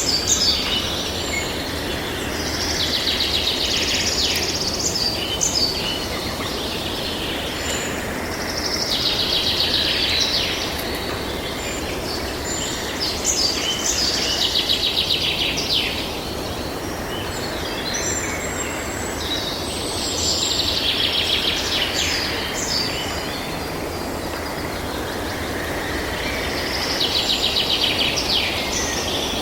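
Outdoor nature ambience: a steady background hiss with a high, rapidly pulsed trilling call that comes five times, each lasting two to three seconds, about every five to six seconds.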